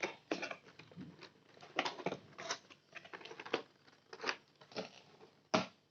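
A cardboard product box and its paper packaging being handled and opened: irregular short rustles, scrapes and clicks, about a dozen spread unevenly.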